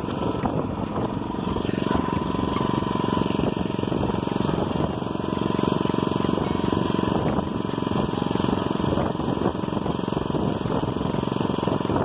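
Small engine of a motorized bicycle running steadily.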